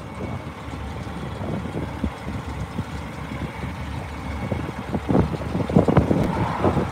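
Diesel engine of a Peterbilt semi-truck car hauler idling steadily, with a few louder rough swells near the end.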